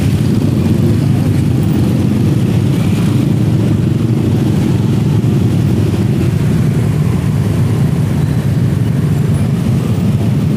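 Steady low rumble of vehicle engines in crawling, jammed traffic.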